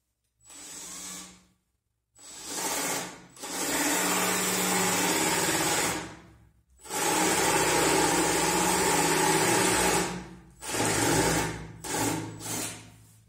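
Cordless drill boring into the edge of a wooden board with a long thin bit, run in bursts. There is a short light run first, then two long runs of about three seconds each, then shorter bursts near the end.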